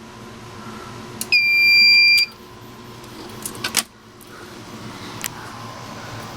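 A fire alarm control panel's piezo sounder gives one steady high beep lasting about a second, followed by a few sharp clicks.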